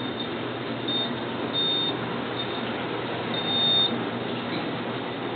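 Steady hum of a moving elevator car with a high electronic beep sounding several times, the two longer beeps about a second and a half and three and a half seconds in.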